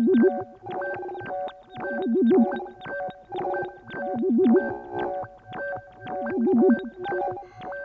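Synthesized electronic sound effect: a busy loop of short beeps over steady held tones, with a warbling, wobbling lower tone that returns about every two seconds.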